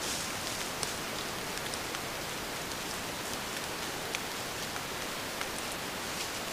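Steady, even hiss with scattered faint ticks dotted through it, and no calls or other pitched sound.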